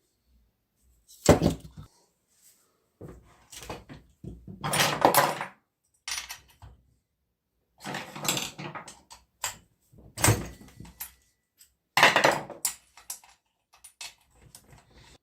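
Hand tools and small metal chainsaw parts clattering and knocking as they are handled, in irregular bursts with short quiet gaps.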